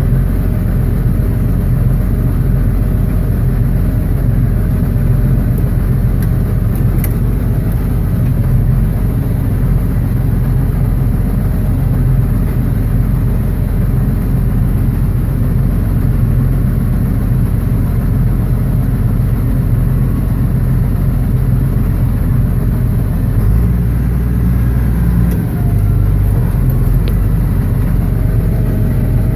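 Tractor and a New Holland small square baler with its own 29-horsepower engine running steadily while baling grass hay, a continuous low engine drone. Near the end a deeper rumble swells in for a few seconds.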